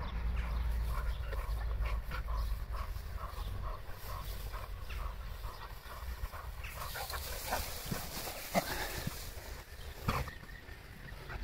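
Bull terrier dogs making short, quickly repeated vocal sounds for the first half. Then a high rustling hiss, with a few sharp knocks in the second half.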